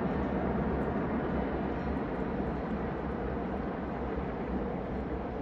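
Helicopter flying along a mountainside carrying an underslung cargo load on a cable; its rotor and engine give a steady sound that slowly grows a little quieter.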